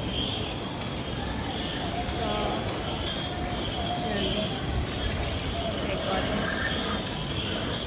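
Steady rushing and churning of water under a round river-rapids raft, heard from aboard, with faint short chirps scattered over it.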